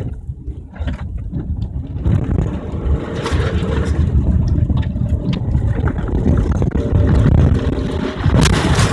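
Subaru's engine running and its tyres on a wet, muddy dirt track, heard from inside the cabin as the car drives along; the steady low drone grows a little louder a few seconds in.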